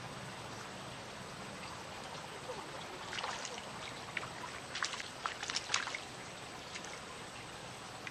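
A hooked tilapia splashing and thrashing at the water's surface as it is reeled in: a burst of short splashes over about three seconds midway, over a steady background hiss.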